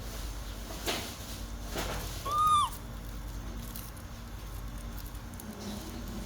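Baby monkey giving one short, high squeak that arches up and falls away, after a couple of faint clicks.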